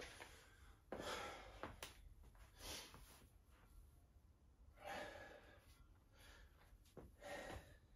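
Faint heavy breathing of a man catching his breath after heavy deadlifts, with a deep breath about every two seconds.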